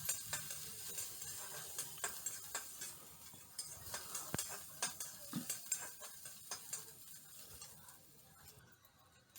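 Chopped onions frying in oil in a kadai: a soft sizzle with a spatula stirring and scraping against the pan in scattered clicks. The sizzle fades away near the end.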